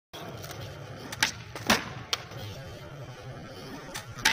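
Skateboard on a concrete skatepark floor: sharp clacks of the tail popping and the board landing. One louder clack comes about a second and a half in, and a quick pair near the end as a flip trick is done, over a steady low rumble.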